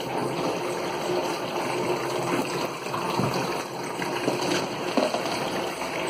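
Water running steadily into the tub of an Electrolux LT15F top-loading washing machine, which keeps filling past its level and overflows. The cause is a water-level sensor hose that had slipped off.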